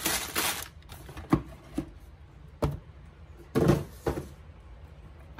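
Tissue paper rustling as it is handled in a cardboard shoebox. Then a few sharp, separate clicks and knocks of handling, with one short rustle a little past the midpoint.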